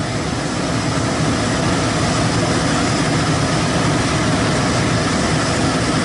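Steady rush of air and low rumble from a running pulse furnace and its blower.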